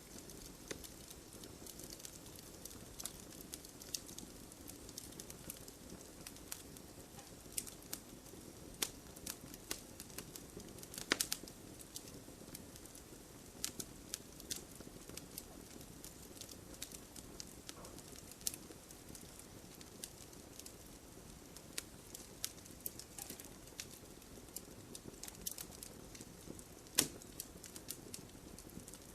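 Wood campfire burning with a soft steady hiss and irregular sharp crackles and pops, a few louder pops standing out now and then.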